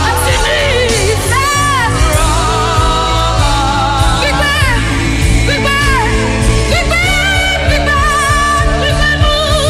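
Worship song: a singing voice with ornamented, wavering runs over a sustained instrumental backing and a steady bass.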